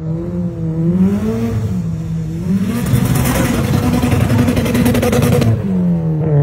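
Car engine revving hard, its pitch swinging up and down as the car spins donuts in snow. From about three seconds in to about five and a half seconds, a loud hiss joins it as the spinning wheels throw up snow.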